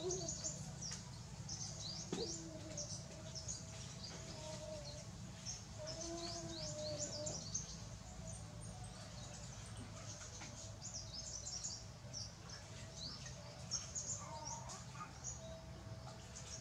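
Small birds chirping: many short, quick, high chirps in irregular runs, over a faint low hum.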